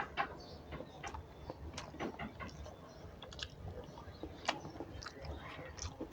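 Close-up chewing and mouth sounds of a person eating a meal of rice and curry, with irregular soft clicks and small crunches.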